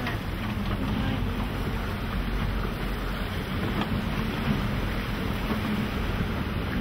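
Steady hissing, rushing noise over a low rumble, from open sea beside a lava ocean entry: surf and wind around the boat, with the hiss of lava pouring into seawater. A few faint pops break through, about four seconds in.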